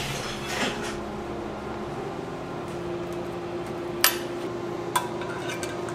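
Steady low shop hum with a held tone once the belt grinder has stopped. About four seconds in come two sharp metal clicks a second apart as locking pliers are clamped onto a steel knife blank.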